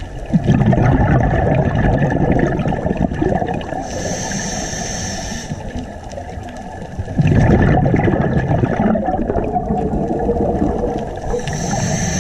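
Scuba diver breathing through a regulator underwater: long bursts of gurgling exhaust bubbles twice, each followed by the steady hiss of an inhalation through the regulator.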